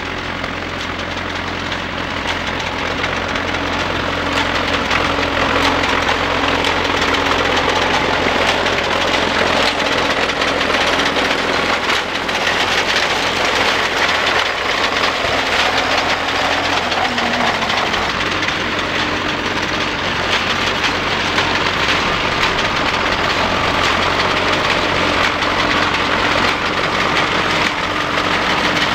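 1939 Fordson N tractor's four-cylinder side-valve engine running steadily under load while pulling a reaper-binder through oats, with the binder's cutting and tying mechanism clattering over it. It grows louder over the first few seconds as the rig comes closer.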